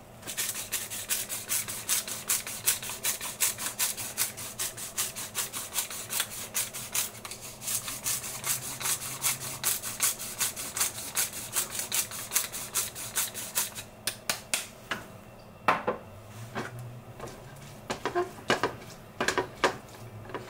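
Hand-twisted sesame grinder crushing roasted sesame seeds over the pan, a rapid, regular crunching click, until about two-thirds of the way through. After that a silicone spatula scrapes and knocks in the frying pan as the shirataki and carrot are stirred, in separate louder clicks.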